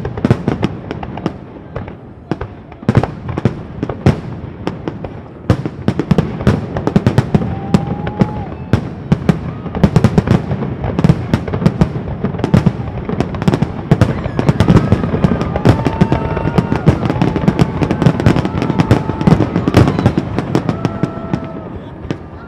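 Fireworks finale barrage: rapid, overlapping bangs and crackles that grow denser in the second half, with short whistling tones over the last several seconds.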